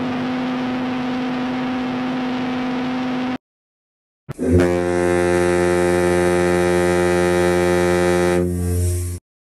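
The SS Île de France's whistle sounding one long steady note that cuts off about three and a half seconds in. After a second of silence, the SS France's horn sounds one long, deeper and louder blast of about five seconds.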